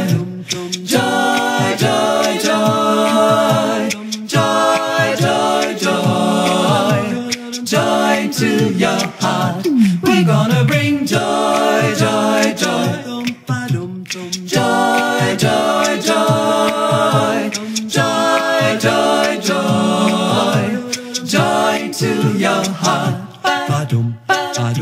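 A cappella group singing in close harmony over a steady rhythmic vocal beat, with a sliding vocal fall about ten seconds in.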